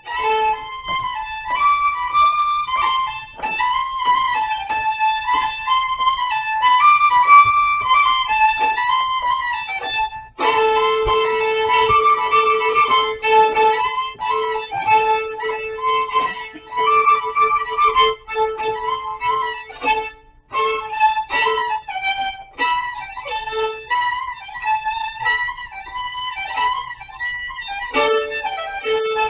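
Violin played in a fast, continuous melody of quick notes. In the middle, a steady lower note is held under the tune for about ten seconds.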